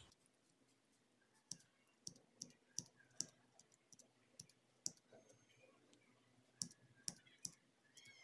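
Small scissors snipping away excess hardened glue along the edge of a felt hair clip: about ten faint, sharp clicks at uneven intervals.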